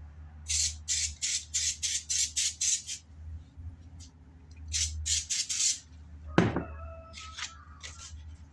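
Runs of quick scratchy rubbing strokes, about three or four a second, over a steady low hum. About six and a half seconds in there is a sharp click, then a bird squawks.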